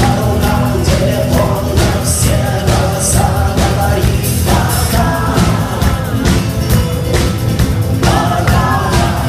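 A song with singing over a steady, driving beat.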